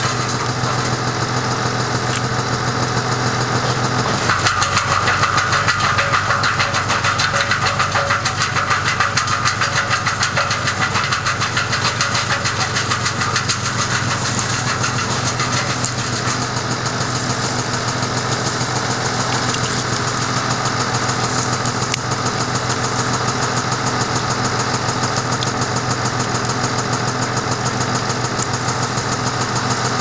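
PTO-driven wood chipper and the engine powering it, running steadily; from about four seconds in the sound grows louder and brighter for several seconds before settling back.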